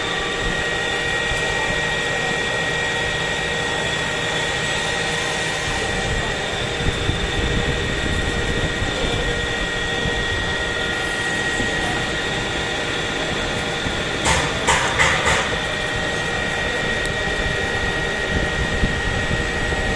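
CNC turning lathe running: a steady high whine over a low hum. A short cluster of sharp clicks comes about fourteen seconds in.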